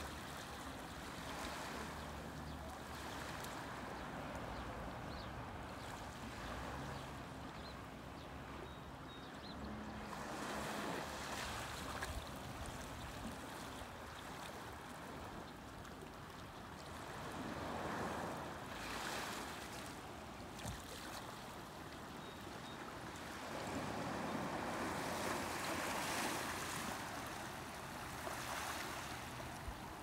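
Small, gentle sea waves lapping and washing up on a sand and pebble shore. The wash swells louder about three times as bigger waves come in.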